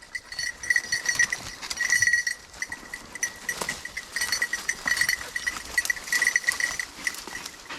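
Bell on a bird dog's collar jingling in irregular bursts as the dog hunts through cover, with brush rustling underneath.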